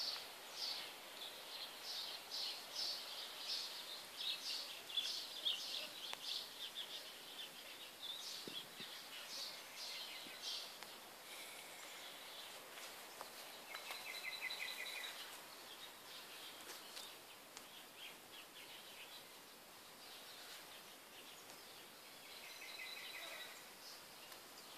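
Small birds chirping: a busy run of short high chirps for the first ten seconds or so, then quieter, with two short trills, one about halfway and one near the end.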